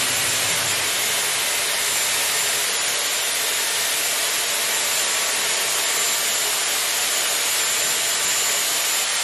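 Dyson Airwrap with its curling barrel running, blowing air steadily while a lock of hair is wound around it: an even rush of air with a faint thin high whine over it.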